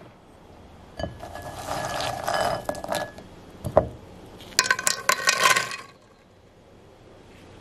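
Cacao beans dropping and clattering onto a metal chocolate-bar mould, the metal ringing under them: a clattering spell, a single knock, then a second, sharper clatter of many small hits that stops about two seconds before the end.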